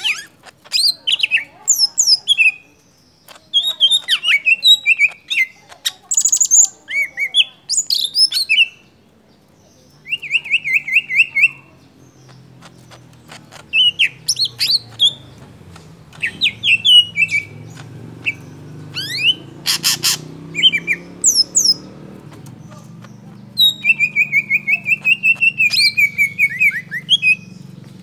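Yellow-headed green leafbird (cucak hijau kepala kuning) singing a long, varied song of rapid chirps, whistled phrases and trills, broken by short pauses. A faint low hum starts about twelve seconds in.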